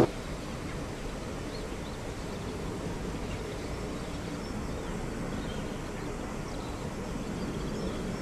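Steady low outdoor background rumble, with a few faint high chirps over it.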